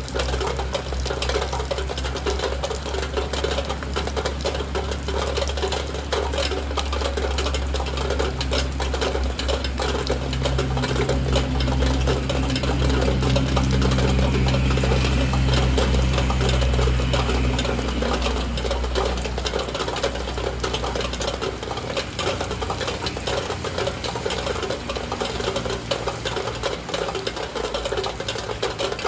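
Rain pattering on a window, a dense, fast ticking of drops. A low hum swells about ten seconds in and fades out a few seconds later.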